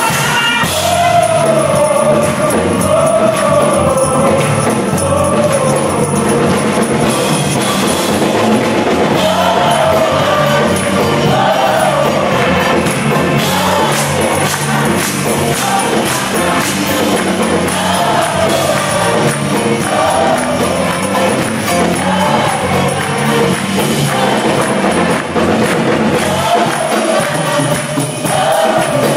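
Mixed high-school choir singing an upbeat gospel song in a Caribbean style, backed by a live band with drum kit.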